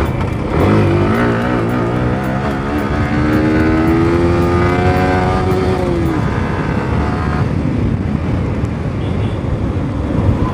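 Motorcycle engine running under way: its note wavers, then climbs steadily for a few seconds as it accelerates, and falls away about six seconds in.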